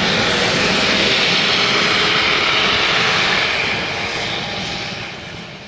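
Eurocopter EC-130 helicopter climbing away after takeoff, its turbine engine and rotors making a steady, loud noise that fades away over the last two seconds.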